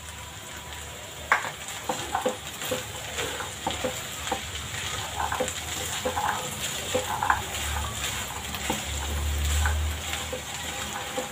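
Plastic spatula stirring cooked black chickpeas in a non-stick kadhai: irregular scraping knocks against the pan over a faint steady sizzle.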